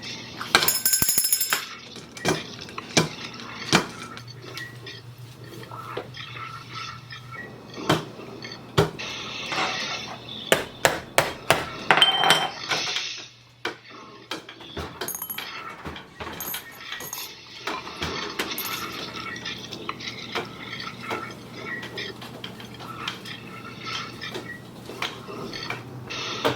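Irregular clinks, clanks and sharp knocks of hard objects, metal among them, over a steady low hum.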